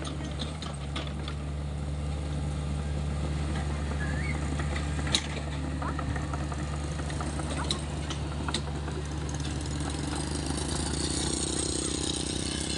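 Hitachi ZX48U mini excavator's diesel engine running steadily, with a few sharp clanks now and then and a hiss that rises near the end.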